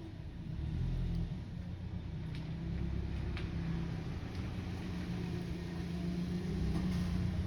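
Wood fire burning in a small secondary-combustion wood stove: a steady low rumbling burn with a few faint crackles.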